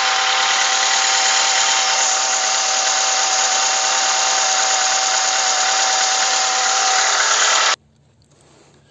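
Under-hood whistle of a Renault Sandero Stepway's accessory belt drive: a loud steady rushing hiss with a thin steady whistle running through it, cutting off suddenly near the end. A new belt and new tensioner and idler rollers have not cured it. The owner traces it to the gap at the power-steering pump pulley, where spraying water stops it.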